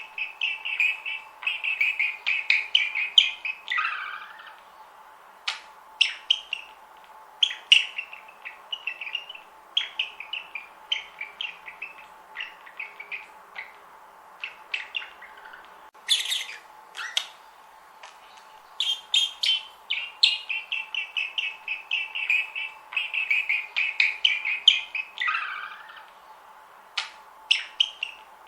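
Pet budgerigars chirping and warbling: quick runs of chirps at the start and again in the second half, with single chirps scattered between. A faint steady hum lies underneath.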